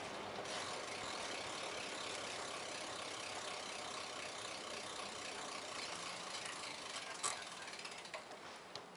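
Steady rushing tyre and wind noise from a bicycle being ridden along a city street. There is a sharp click about seven seconds in, after which the noise eases off.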